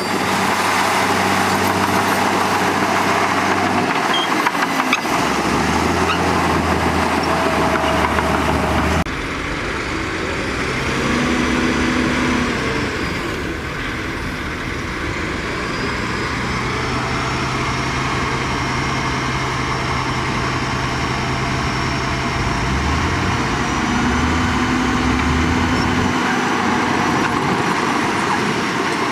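Heavy earthmoving machinery running: big diesel engines, their pitch shifting up and down as the load and engine speed change. The sound changes abruptly about nine seconds in.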